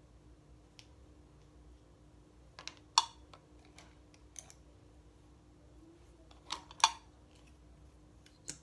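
Sharp clicks and taps of plastic makeup packaging being handled: caps and tubes opened, closed and set down. The loudest clicks come about three seconds in and just before seven seconds, with lighter taps between them.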